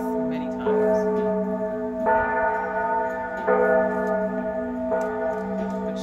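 Church bells of Florence Cathedral's campanile ringing, a new stroke about every second and a half, each ringing on and overlapping the last over a steady low hum.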